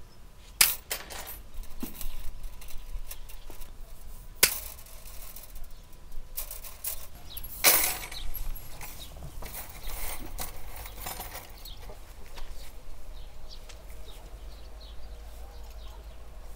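Wire cutters snipping lengths of thin galvanized steel wire, with a few sharp snaps and light metallic ticking and rattling of the cut wire pieces.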